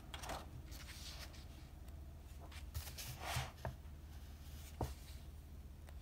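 Paper pages of an activity book being turned by hand: a few soft rustling swishes, the strongest about three seconds in, with a couple of light clicks as the pages settle.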